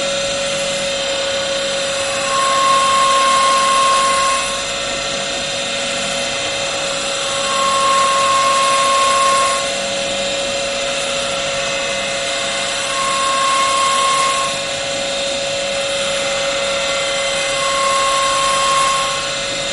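Automatic CNC woodworking machine running with a steady whine. Four times, at even intervals of about five seconds, a higher, louder tone comes in for about two seconds as the machine repeats its work cycle.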